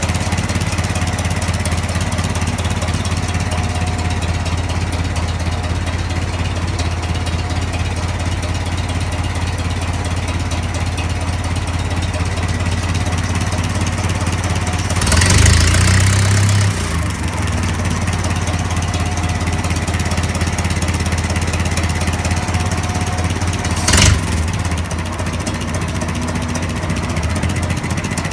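1955 International 300 Utility tractor's four-cylinder engine idling evenly, running smoothly with its bad lifter and pushrod replaced. About halfway through it gets louder for a second and a half, and near the end there is a single sharp knock.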